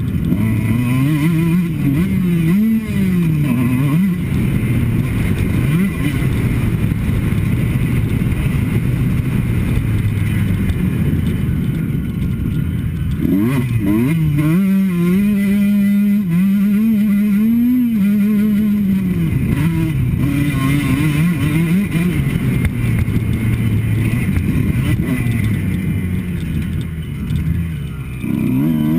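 Kawasaki KX two-stroke motocross bike engine being ridden, its pitch rising and falling with the throttle. It holds a long high rev in the middle, with lower-revving stretches before and after.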